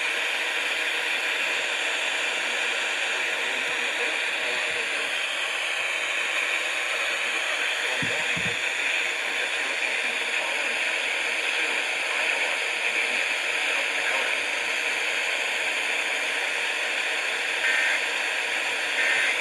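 Steady hiss of radio static from a weakly received broadcast. Near the end, two short bursts of EAS digital data tones rise faintly out of the static.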